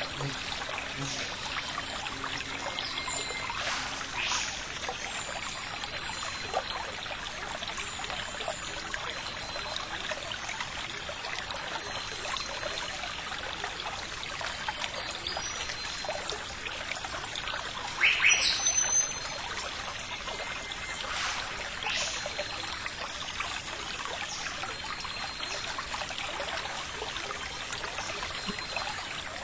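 Steady rushing outdoor ambience like running stream water, with a few brief high-pitched sounds over it, the loudest about two-thirds of the way through.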